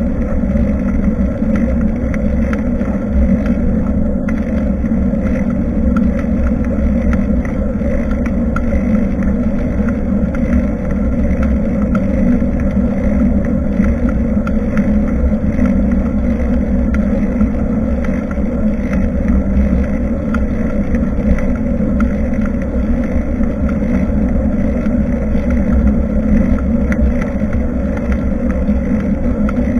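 Steady rumble and drone of wind and road noise on a bicycle-mounted action camera while riding, with a few faint clicks.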